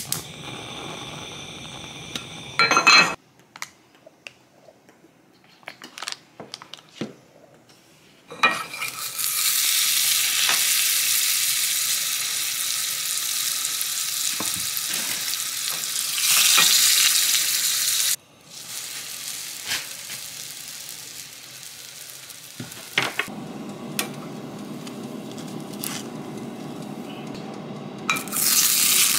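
Food frying in a pan on the stove: a loud, even sizzle that starts about eight seconds in, drops back a little after eighteen seconds and swells again near the end, with scattered clicks and taps of a utensil against the pan.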